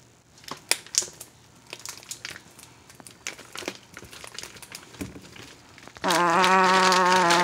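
Zip-top plastic bag crinkling in scattered small crackles as hands squish the Oreo, banana and egg mixture inside it. About six seconds in, a loud, steady buzz like a housefly starts and keeps going.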